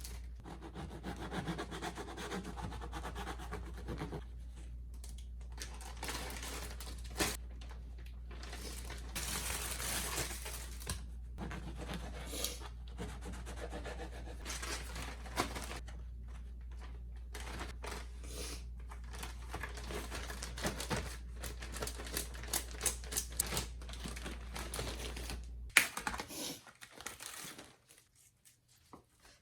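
Kitchen food-preparation handling sounds: irregular clicking, rustling and scraping, over a steady low hum that cuts off with a sharp click near the end.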